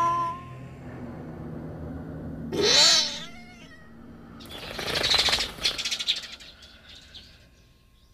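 Cat sound effects: a short meow at the start, then a loud rising-and-falling yowl about two and a half seconds in, followed by about two seconds of harsh, rattling noise that fades away.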